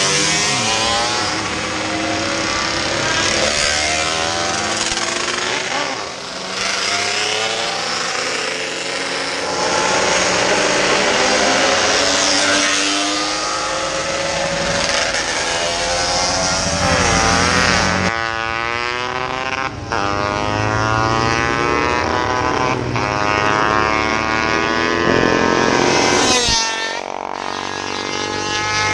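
Racing motorcycles passing one after another at speed, their engines at high revs, each engine note sliding down in pitch as the bike goes by.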